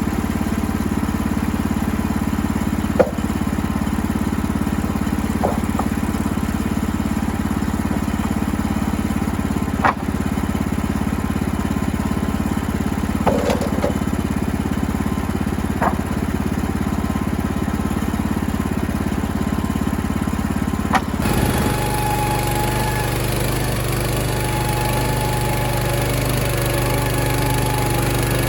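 An engine running steadily, with a few short sharp clicks or knocks over it. About 21 seconds in, the sound changes abruptly to a different, even engine sound with a steady whining tone.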